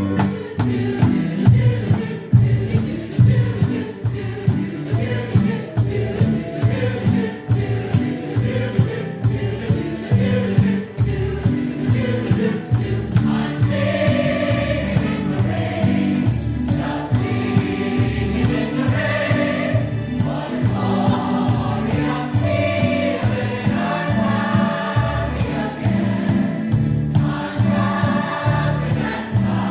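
A group of voices singing to instrumental accompaniment with a steady beat. The singing grows stronger about halfway through.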